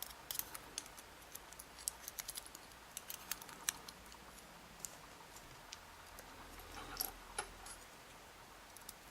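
Faint, scattered small metallic clicks and ticks, irregular and a few per second: tiny lock pins and picking tools being handled while a pin-tumbler lock cylinder is gutted.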